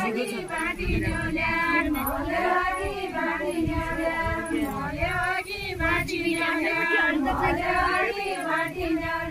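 A group of women singing a deuda folk song together in chorus, without a break.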